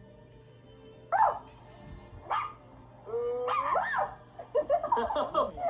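A dog barking: two sharp barks, then a longer drawn-out yelp and a quick run of barks near the end.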